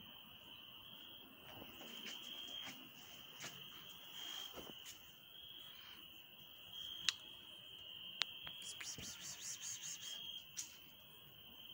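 Crickets chirping in a steady high trill, with a couple of sharp clicks about seven and eight seconds in and a quick run of soft ticks near the end.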